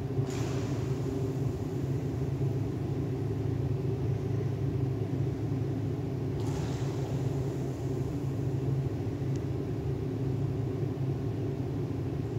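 Steady low mechanical hum of an indoor pool hall's machinery, with two brief hisses about six seconds apart as a scuba diver's exhaled bubbles break the surface.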